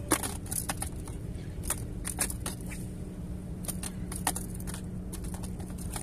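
Irregular light clicks and scuffs of footsteps and handling on the rocks of a breakwater, over a steady low rumble.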